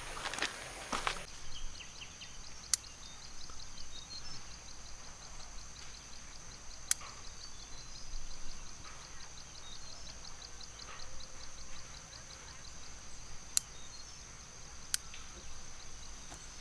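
Insects trilling steadily at a high pitch with a fast, even pulse. A few sharp clicks stand out, and there are some knocks in the first second or so.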